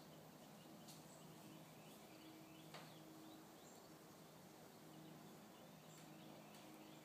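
Near silence: faint outdoor ambience with a low steady hum and scattered faint bird chirps.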